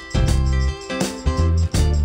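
Instrumental background music with a prominent bass line, its low notes coming in short, regular phrases.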